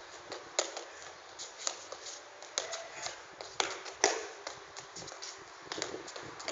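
A series of irregular sharp taps and knocks, about a dozen, the loudest about four seconds in.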